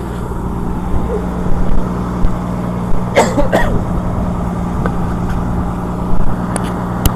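Steady low drone of an engine running aboard a purse-seine fishing boat. About three seconds in there is a brief voice-like call, and a few sharp clicks come near the end.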